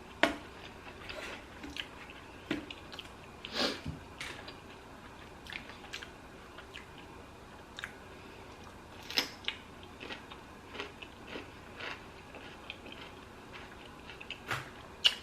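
Close-up eating sounds: chewing and wet mouth smacks on a lettuce-wrapped salami, mozzarella and pesto sandwich, with scattered short clicks and a few louder smacks spread through.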